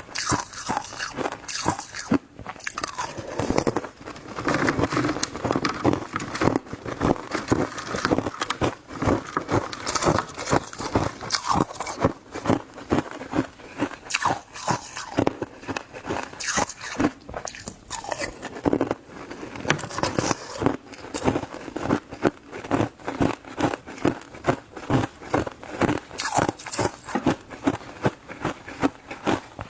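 Shaved ice being bitten and chewed close to the microphone: rapid, continuous crunches, several a second.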